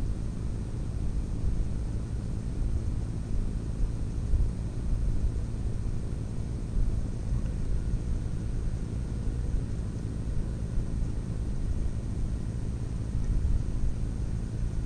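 Steady low rumble of background noise, with a faint, constant high-pitched whine above it.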